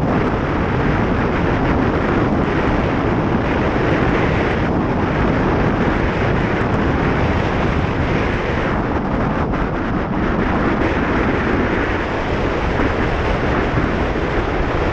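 Wind buffeting the built-in microphone of a helmet-top GoPro Hero 4 Session on a moving motorcycle: a loud, steady rush of noise with no engine note standing out. This is the wind noise that makes the camera's own audio unusable at road speeds above about 20 mph.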